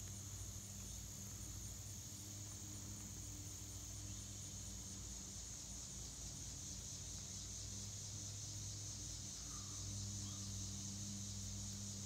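Faint, steady, high-pitched chirring of a field insect chorus, over a low steady hum.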